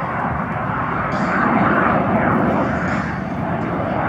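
Jet engine noise of a CF-18 Hornet in flight, from its two General Electric F404 turbofans: a steady rushing rumble with no clear pitch.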